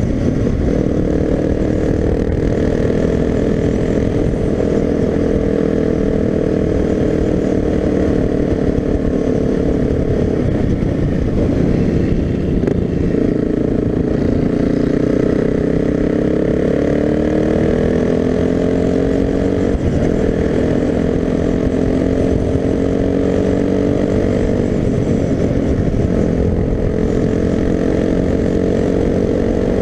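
Suzuki DR-Z250's single-cylinder four-stroke engine running at road speed, with wind rush. The engine note dips about ten seconds in, then climbs steadily as the bike speeds up, with a break in pitch around twenty seconds.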